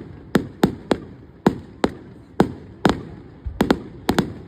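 Fireworks display: a rapid, irregular string of sharp bangs, about two to three a second with some close pairs, each with a short echoing tail.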